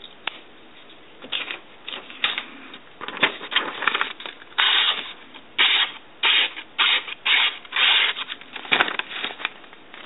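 Locking blade of a Victorinox Rucksack pocket knife slicing through a sheet of paper: a run of short, papery rasping strokes, starting about a second in and coming thick and fast through the middle.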